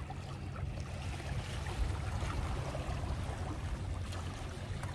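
Small waves lapping and washing over breakwater rocks, with a steady low rumble underneath.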